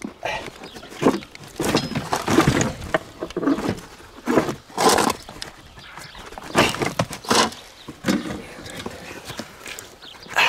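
Irregular scraping, scuffing and knocking as old tyres and a bent sheet of scrap metal are shifted by gloved hands, in bursts a second or so apart, with animal noises mixed in.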